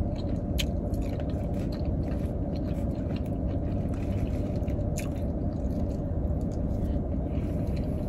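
Close-up chewing of food with small wet clicks and smacks scattered through, over the steady low hum of an idling car with its air conditioning running.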